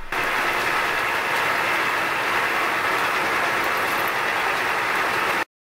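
End mill on a Bridgeport milling machine cutting a slot in a mild-steel angle plate, a steady cutting noise with happy little chirps as cutting oil is brushed onto the cut. It cuts off suddenly near the end.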